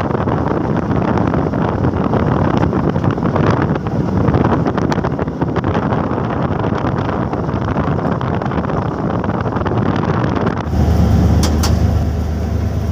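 Wind buffeting the microphone from the side window of a moving diesel locomotive, over the locomotive's running noise. About eleven seconds in the wind noise stops and a steady low engine drone, heard from inside the cab, takes over.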